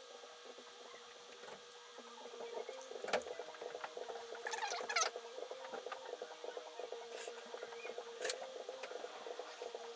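Saran wrap crinkling and rustling as it is handled around a small magnet, with a few sharp clicks. A faint steady hum runs underneath.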